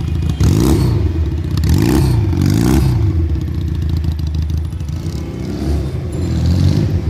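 Regal Raptor Spyder motorcycle engine, a 160 cc twin-cylinder EFI, revved through its custom exhaust: three quick blips in the first three seconds and another about six seconds in, settling back to idle between them.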